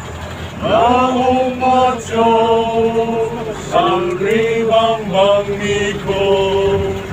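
Men singing together in long held notes, sliding up into each new note, over the steady low hum of a bus running.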